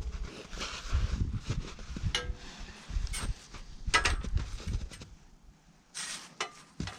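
Irregular clunks and clicks of a portable sawmill's blade wheels and band blade being handled by hand during a blade change, with a few low thuds in the first couple of seconds.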